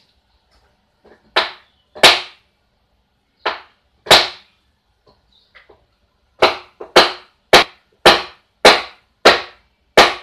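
Hammer blows on wood: eleven sharp knocks, each ringing briefly. Two pairs of blows come in the first half, then a steady run of about two blows a second in the second half.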